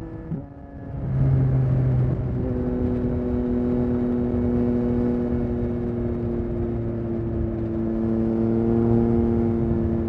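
Yamaha XSR900's 890 cc inline-triple engine through a Spark aftermarket exhaust, heard while riding. The engine is quieter off the throttle for the first second, then picks up. About two and a half seconds in its pitch steps down, as with an upshift, and it then runs steadily while cruising.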